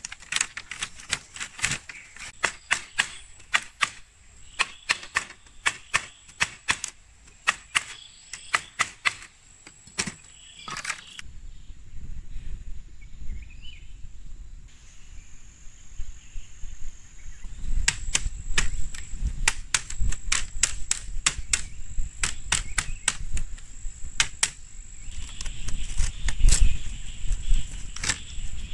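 Repeated sharp knocks of a tool striking bamboo, about two a second. They stop for several seconds around the middle, then start again with a low rumble under them.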